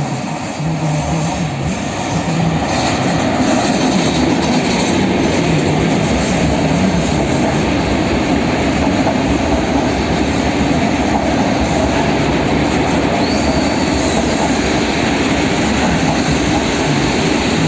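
Polregio regional passenger train running past on the track, with wheel and rail noise that grows louder about two seconds in and then holds steady.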